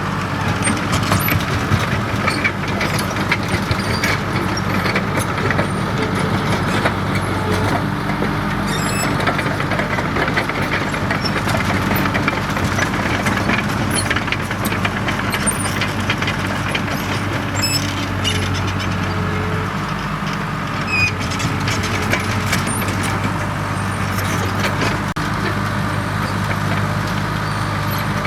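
Komatsu D37EX crawler bulldozer's diesel engine running steadily under work, with scattered clanks and clicks from the machine.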